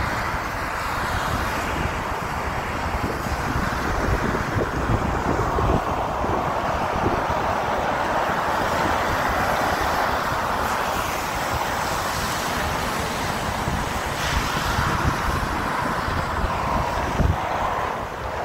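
Steady road traffic on a flooded, wet highway: tyres hissing through water, with wind buffeting the phone's microphone.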